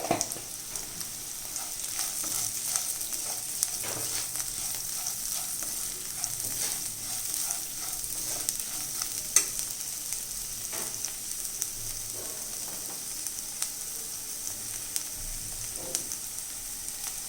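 Cooked cluster beans sizzling in a frying pan while being stirred, with a steady hiss and scattered small scrapes and clicks of the utensil against the pan. One sharper knock about nine seconds in.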